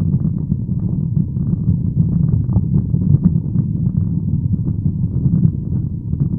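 Steady low rumble of a moving car, its road and engine noise heard from inside the cabin.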